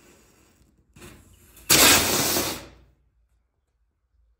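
Faint hiss and crackle of burning matchsticks, then a firework goes off with a loud rushing hiss about a second and a half in. The hiss lasts just over a second and dies away quickly.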